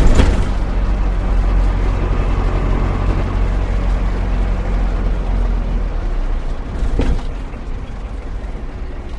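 Van engine running steadily with a low hum, with a sharp mechanical knock at the start and another about seven seconds in. The sound eases off near the end.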